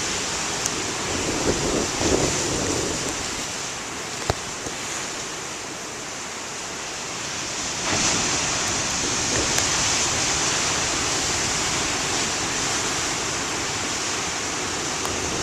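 Heavy storm surf breaking and rushing, with wind buffeting the microphone; the surf swells louder about eight seconds in.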